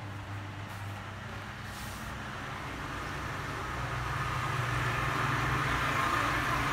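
A motor vehicle's engine running with a steady low hum, growing gradually louder.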